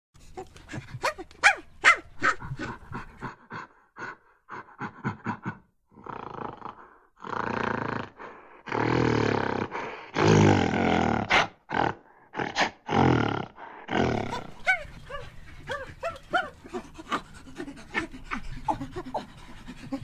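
Monkeys calling: a string of short calls, then several longer, harsh, noisy calls in the middle, giving way near the end to quick, high chattering chirps.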